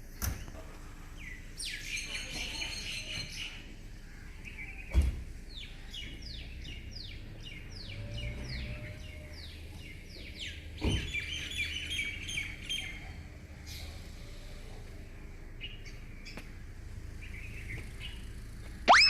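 Several songbirds singing and chirping. One gives a run of about a dozen quick down-slurred notes midway, over a low steady background hum, with a few sharp knocks, the loudest about five seconds in.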